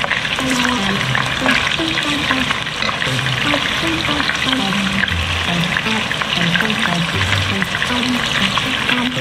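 Beef liver slices sizzling and crackling as they fry in hot oil, being half-cooked. Background music with low, stepping notes plays under the sizzle.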